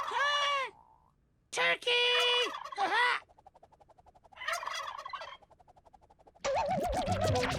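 Turkey gobbling: short bursts of gobbles in the first few seconds and a rougher rattle about halfway through, with a voice calling "Turkey!". Music with a warbling tone comes in near the end.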